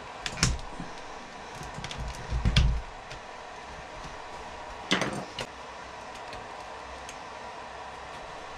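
Scattered clicks and knocks of small hand tools working on plastic RC-truck suspension parts, with one louder dull thump about two and a half seconds in and a sharp click about five seconds in, over a faint steady hum.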